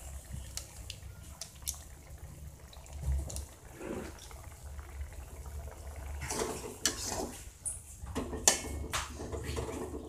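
Thin sauce with squid simmering and bubbling in a metal wok. A metal spatula scrapes and taps against the wok several times in the second half, with one louder clank near the end.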